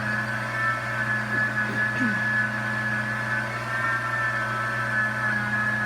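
Pampered Chef Deluxe Cooking Blender running steadily on its grind setting, its motor and blades grinding whole coffee beans.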